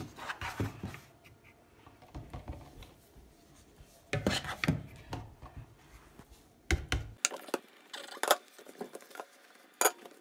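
Plastic bowl scraping and tapping against a plastic mixing bowl as flour is scooped and poured, then hands working flour into wet dough in a plastic tub. Irregular light scrapes with a few sharper clicks, clustered about four and seven seconds in.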